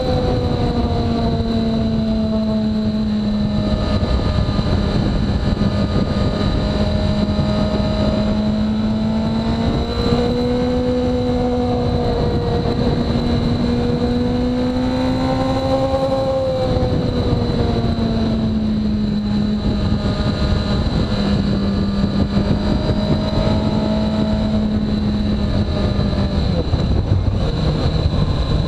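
2017 Suzuki GSX-R1000R's inline-four engine running at steady road speed, its note slowly rising and falling with the throttle and dropping lower near the end, under steady wind rush.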